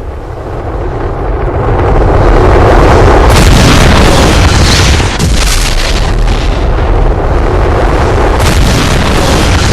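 Explosions: continuous deep booming and rumble that swells over the first two seconds and stays loud, with sharper blasts about three, five and eight and a half seconds in.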